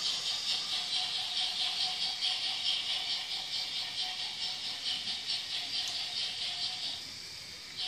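Battery-powered Märklin My World toy train running on its plastic track: a rapid, even rhythmic hissing clatter over a faint steady motor whine, dropping lower about seven seconds in.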